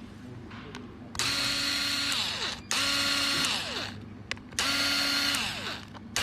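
Electric screwdriver running in three short bursts of about a second and a half each, its pitch sinking as the motor stops after each one, with a fourth burst starting at the very end: the screws are being driven out to open the padlock's casing.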